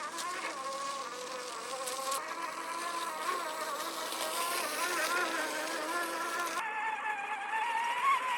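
Electric motor and gearbox of a 1/10 scale RC crawler truck whining as it drives, the pitch wavering up and down with the throttle. A hiss over it drops away about two thirds of the way through.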